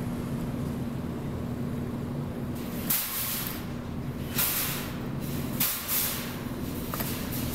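Steady electrical hum of a claw machine, with three short bursts of hiss about three, four and a half, and six seconds in.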